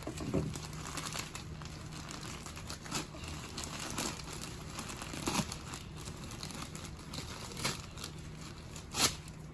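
Crinkling and rustling as rolled wall insulation and its wrapping are handled, with scattered light knocks and a sharper knock about nine seconds in.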